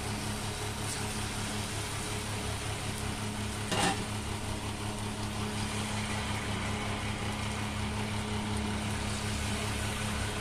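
Hot vegetable oil sizzling and bubbling steadily as a dollop of batter deep-fries in a kadai, over a steady low hum, with a single short click about four seconds in.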